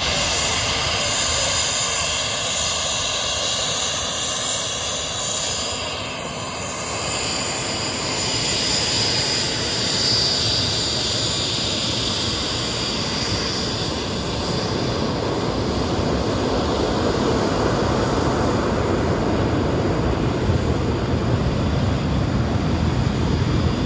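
Soko G-2 Galeb jet trainer's Rolls-Royce Viper turbojet running while the jet taxis. A high whine over a steady rush of noise; the whine fades and the lower rush grows louder about halfway through.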